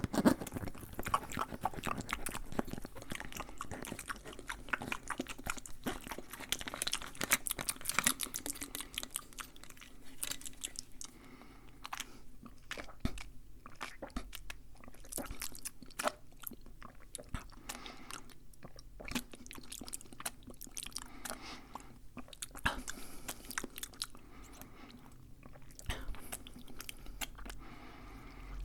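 Fast, aggressive mouth sounds close to the microphone: a dense run of quick clicks and smacks, busiest in the first half and sparser later.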